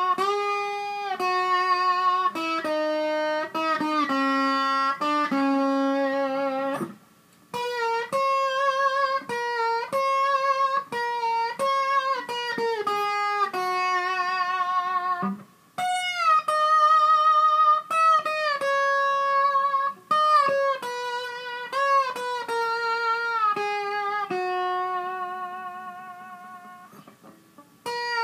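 Solo electric slide guitar playing a melody one note at a time, with wide vibrato and gliding pitch on the held notes. The playing breaks off briefly about seven and fifteen seconds in, and near the end a held note fades away before the next phrase starts.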